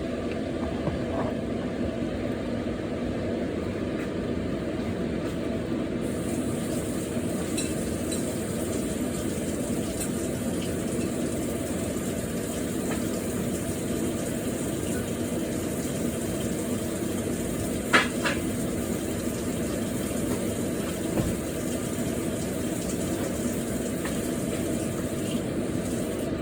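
Marinated chicken frying in a pan: a steady sizzle over a constant low rumble, with one sharp clink about eighteen seconds in.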